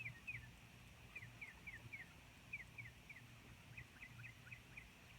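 Faint bird chirping: short, high, down-slurred chirps in quick runs of two to four, a few a second.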